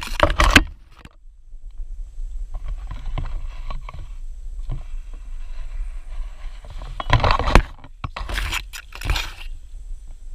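Leaves and twigs brushing and scraping against the handheld camera. There are loud rustling bursts right at the start and again about seven to nine seconds in, with softer rustling between.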